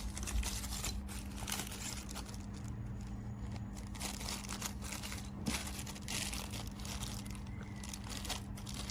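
Irregular crinkling and rustling handling noise with small clicks, over a steady low hum.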